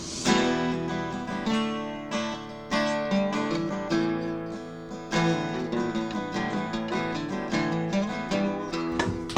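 Background music: acoustic guitar picked and strummed, one note or chord after another ringing out.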